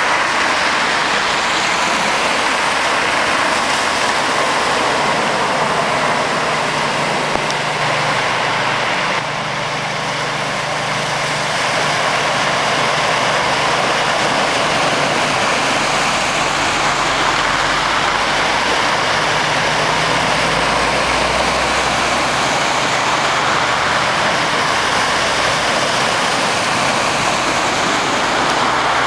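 Floodwater rushing across a road as cars drive through it, their tyres throwing up spray, over a steady low engine hum.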